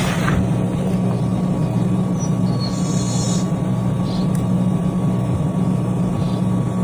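A motor running steadily with a constant low hum and a rough whirring noise over it.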